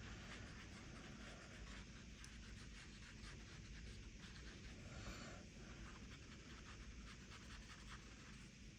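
Faint, soft scratching of a watercolour brush stroking over sketchbook paper, close to silence.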